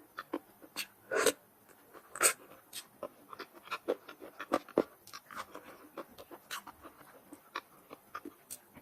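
A person eating close to the microphone: irregular wet mouth clicks, chewing and smacking, with a few louder slurps or breaths.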